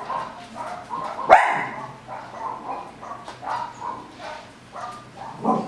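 A dog barking: one sharp, loud bark about a second in and another near the end, with fainter small sounds between.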